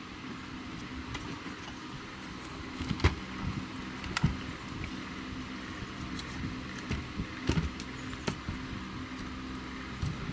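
Handling of a PAT tester's plastic case and circuit board as it is opened up: a few sharp clicks and knocks, the loudest about three and four seconds in, with more near the end. A steady low hum runs underneath.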